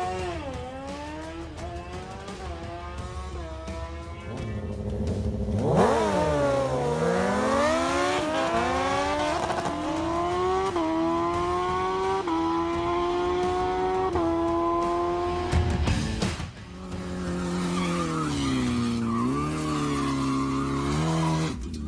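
Car engine accelerating hard, its pitch climbing and dropping back at each gear shift, several times in a row. It dips sharply and climbs again about six seconds in, and again near the end.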